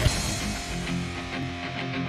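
Background music with guitar; a louder passage gives way at the start to a quieter guitar part.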